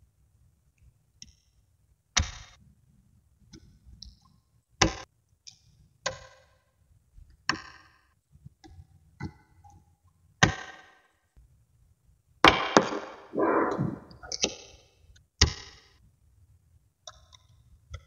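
Small neodymium magnetic balls snapping against each other as a strand of them is laid onto a ball sculpture: about nine sharp clicks a second or two apart, with a longer clattering rattle of balls settling together about two-thirds of the way in.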